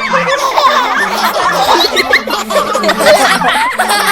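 A crowd of children laughing all at once, many overlapping giggles and chuckles making a steady, dense mass of laughter.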